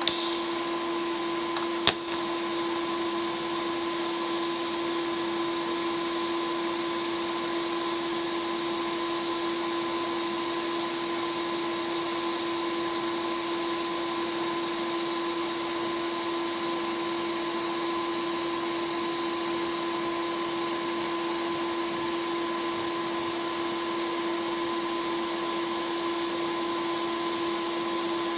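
TIG welding arc on an edge weld joint: a steady hiss with a constant hum, and a sharp click about two seconds in.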